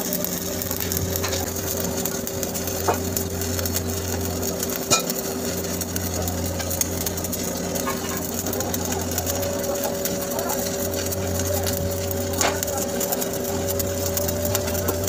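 Stick (SMAW) welding arc crackling steadily as the electrode lays a capping pass on carbon steel pipe, with a few sharper pops. A steady low hum runs underneath.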